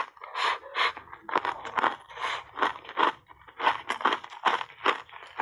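Ice cubes dusted with matcha powder being chewed, a steady run of sharp crunches about three a second.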